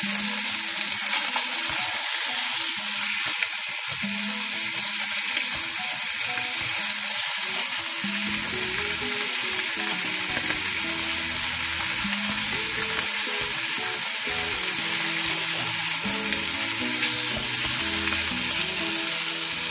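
Chicken and pork pieces sizzling steadily as they fry in a pot, browning on their way to golden brown, with a wooden spoon stirring them now and then.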